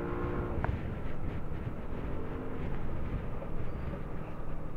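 Yamaha motor scooter's engine running under way, heard with heavy wind rumble on the microphone; the engine note rises and eases twice as the throttle changes. A short click a little over half a second in.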